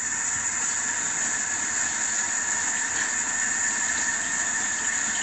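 Kitchen faucet water running steadily into the sink, a level hiss, run through the newly installed garbage disposal's drain to check it for leaks.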